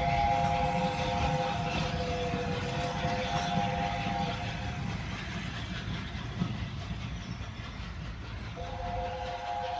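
Train whistle sounding a long chord of several notes that stops about four and a half seconds in and sounds again near the end, over the rumble and clatter of coaches running on the rails.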